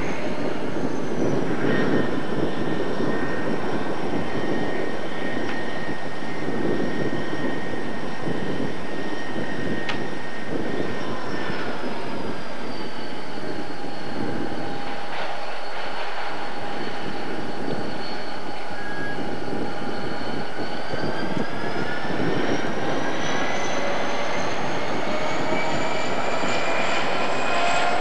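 Diesel locomotive working under load as it hauls a loaded grain train up a grade close by: a steady engine rumble with a high whine that dips in pitch in the middle and climbs again toward the end.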